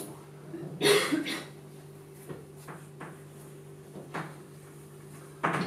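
A single cough about a second in, then a few faint taps of chalk on a blackboard over a steady low hum.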